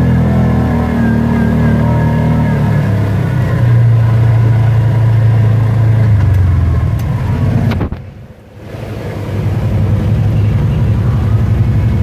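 Side-by-side UTV engine running steadily while driving through a shallow creek. The sound drops out briefly about eight seconds in, then the engine runs on.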